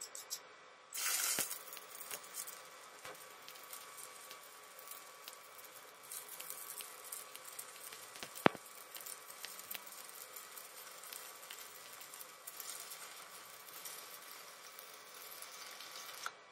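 Stick (shielded metal arc) welding on steel pipe and plate: the electrode's arc is struck about a second in with a loud burst, then crackles and sizzles steadily as the bead is run. It cuts off sharply near the end when the arc is broken. There is one sharp tick about halfway through.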